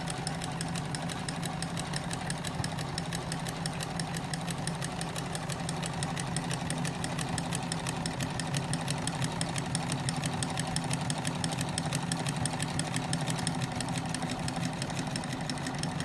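Domestic sewing machine stitching steadily, fitted with an overlock presser foot whose blade trims the fabric edge as it sews: a constant motor hum under a rapid, even needle clatter.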